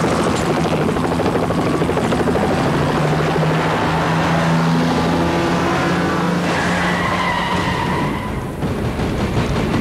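Car driving fast: the engine runs hard under a dense rush of road noise, with a drawn-out tyre squeal about seven seconds in.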